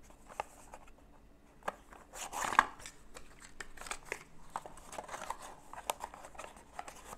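Small cardboard box being handled, its flaps opened and pressed with scattered light taps, scrapes and rustles; the loudest is a brief scuffing rustle about two and a half seconds in.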